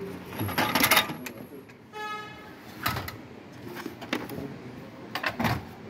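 Handling noises as a model car and the objects around it are touched and moved: a cluster of clicks and rattles in the first second, a short squeak about two seconds in, then scattered knocks, the loudest near the end.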